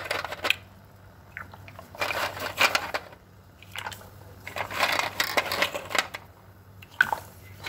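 Dry paccheri pasta tubes being dropped by the handful into a stainless steel pot of boiling water, clattering and splashing in four short bursts with pauses between.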